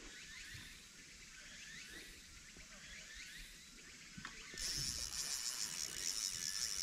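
Quiet pond-side ambience with faint, short high chirps scattered throughout. About two-thirds of the way in, a high hissing buzz comes in and the level rises slowly.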